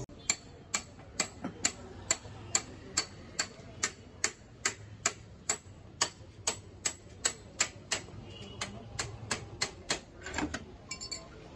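Steady clock-like ticking, about two ticks a second, stopping about ten seconds in. It reads as a ticking-clock effect laid over the garage sound: the ticks reach above the bandwidth limit of the rest of the audio.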